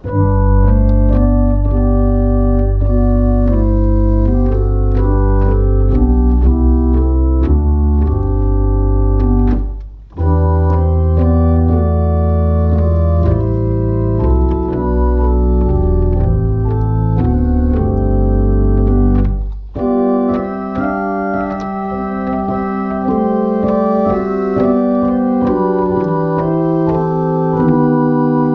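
1871 Walker pipe organ playing sustained chords in three phrases, with short breaks about ten and twenty seconds in. Deep bass notes sound under the first two phrases and are gone in the last.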